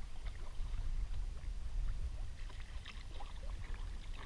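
Wind rumbling on the microphone over water lapping and slapping against a kayak hull in choppy sea, with scattered small splashes and knocks.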